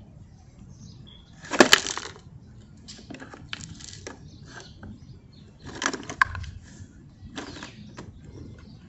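Hard plastic of toy garbage trucks clattering and rattling as they are handled, in a few short bursts: the loudest about one and a half seconds in, another around six seconds, with lighter clicks between.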